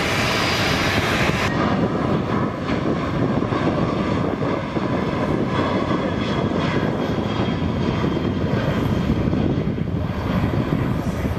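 A Boeing 737 jet airliner's engines at takeoff thrust: a steady, loud rush of jet noise as the plane rolls down the runway and lifts off.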